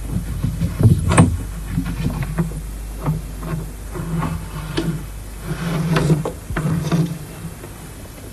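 Irregular light knocks and short scraping rasps of hands working at a wall surface. The loudest knocks come about a second in, and a longer rasp follows near the end.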